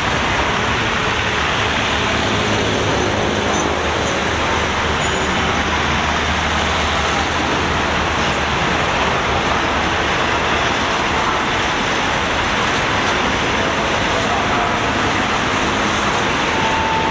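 Passenger train coaches rolling past on the track, a steady rumble of wheels on the rails, with a brief thin high tone near the end.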